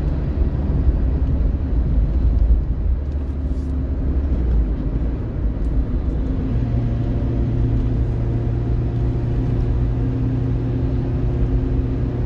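Car engine and tyre rumble heard from inside the cabin while cruising on a highway. About six seconds in, a steady low engine hum rises over the rumble and holds.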